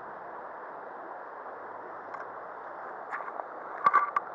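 Steady rushing outdoor background noise. About three seconds in comes a run of sharp clicks and knocks, loudest just before the end, from a hand handling the fly rod's cork grip close to the camera.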